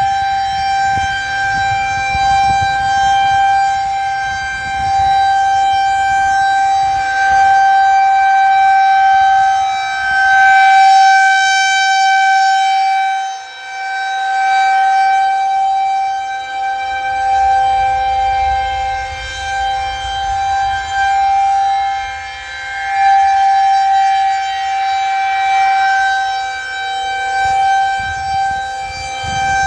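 Federal Signal 2001-130 outdoor warning siren sounding a steady tone for a tornado warning. Its loudness swells and dips every several seconds as the rotating siren sweeps round.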